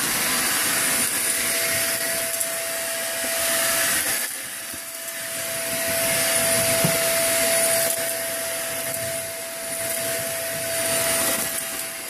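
Small corded stick vacuum cleaner running with a steady high motor whine over a rushing hiss of air as its nozzle is pushed over wood shavings on a hardwood floor. The sound dips briefly about four seconds in and again around ten seconds. It is running unclogged with good suction, the clog-causing piece taken out.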